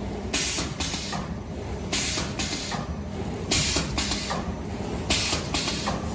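Automatic plastic bag-making machine running: a steady mechanical hum, broken by short rushes of noise that come in pairs about every one and a half seconds as the machine cycles.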